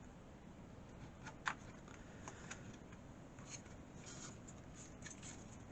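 Faint handling of PC parts with a few light clicks, as a stick of RAM is fitted into a motherboard slot; the clearest click comes about one and a half seconds in.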